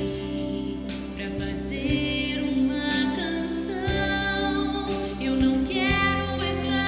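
Slow, gentle song with a singing voice over sustained instrumental chords.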